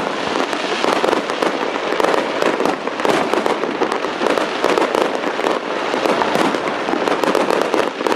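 Fireworks going off in a dense, continuous barrage of crackling pops and bangs, with no pause between them.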